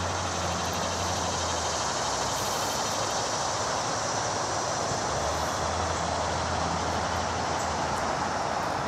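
A train rolling past on nearby tracks: a steady rumble and roar, with a low hum underneath that drops out after a couple of seconds and returns about halfway through.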